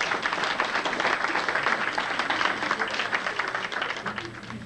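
A crowd applauding, the clapping dying away near the end.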